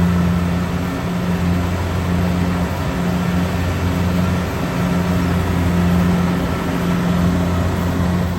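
An engine running steadily, a low even hum over a wide rushing noise, with no change in speed.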